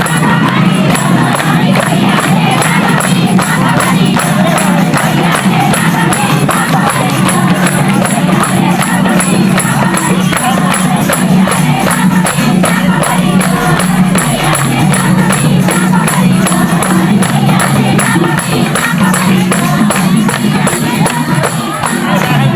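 Loud festive dance music with group singing over a steady percussive beat.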